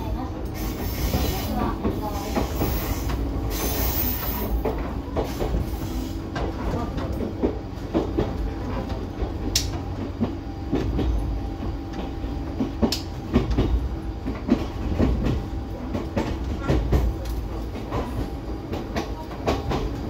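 Choshi Electric Railway train running along the line, heard from inside the carriage: a steady low rumble of wheels on rail, broken by frequent irregular clicks and knocks from the track.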